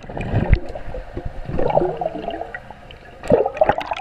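Pool water gurgling and sloshing, heard muffled from a microphone under water in a GoPro housing, with louder surges near the start and again near the end.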